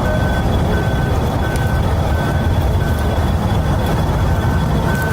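A vehicle's motor rumbling steadily while a reversing beeper sounds at an even pace, a short high beep about every three-quarters of a second.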